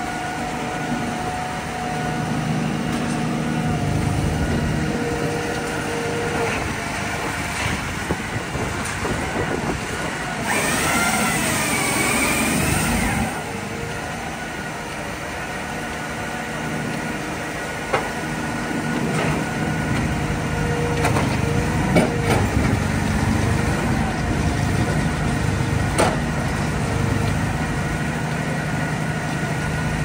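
Tajfun RCA 480 firewood processor running, a steady machine hum with sharp knocks now and then. About ten seconds in comes a roughly three-second wavering whine with hiss.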